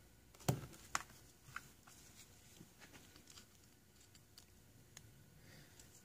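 Faint handling clicks and taps of a terminal installer tool and pin being worked into a small plastic connector, the two sharpest about half a second and one second in, with a few fainter ticks after.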